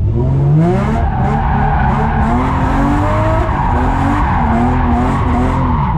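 Drift car sliding with its tyres screeching while the engine revs rise and fall, heard from inside the cabin. The tyre screech sets in about a second in and holds until just before the end.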